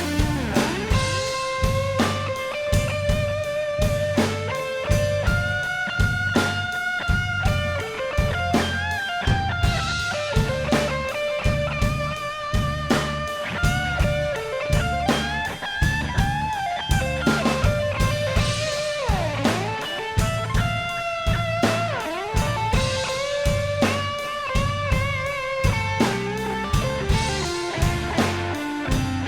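Rock music: electric guitar over a steady drum beat.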